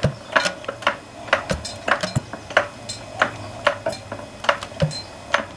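McDonald Super Diesel crude-oil semi-diesel stationary engine running slowly, with sharp mechanical clicks from its fuel injection pump and linkage, roughly two to three a second and a little uneven, over a faint low hum.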